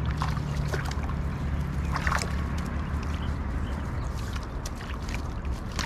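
Water sloshing and dripping as a wet fishing net and a wire-hoop fish trap are handled in the shallows, with a few short splashes, the clearest about two seconds in. A steady low hum runs underneath.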